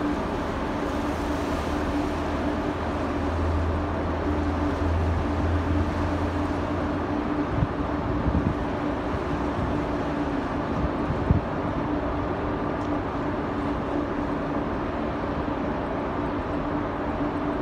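Steady mechanical hum of a cargo ship's engines and machinery, holding one pitch, under a rush of wind and water, with a few brief thumps about eight and eleven seconds in.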